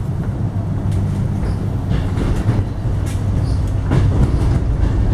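Running noise heard inside the carriage of an X'Trapolis electric multiple unit train: a steady low rumble of wheels on rail and traction equipment, with a few sharp clicks from the track.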